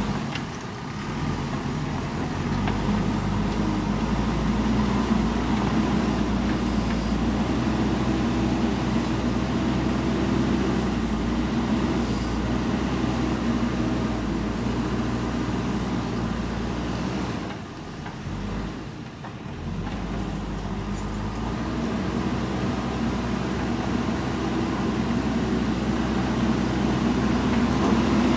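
JCB 3DX backhoe loader's diesel engine running steadily while it works gravel, briefly quieter about two-thirds of the way through.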